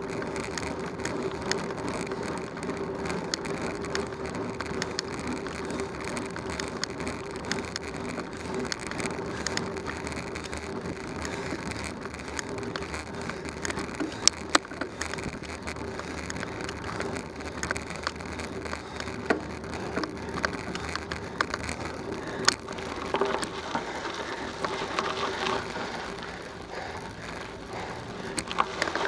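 Bicycle tyres rolling on a paved road, with steady tyre and wind rush and a steady hum. Scattered sharp clicks come from bumps in the road. Denser crackling begins near the end as the tyres go onto gravel.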